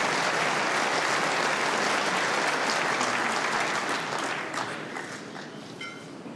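Audience applauding, loud and steady at first, then dying away over the last two seconds to a few scattered claps.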